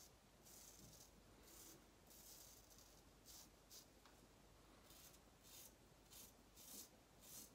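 Faint, dry scraping of a Parker near-wedge straight razor cutting stubble through lather, in short strokes about two a second.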